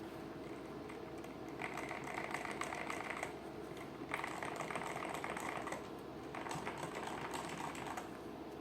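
Mechanical keyboard with stock Outemu Red linear switches being typed on quickly, in three spells of rapid key clicks with short pauses between them.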